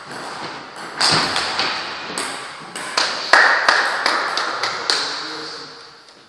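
Table tennis ball ticking sharply off the bats and table, a dozen or so quick clicks about a third to half a second apart, each with a short ring from the hall, fading out near the end.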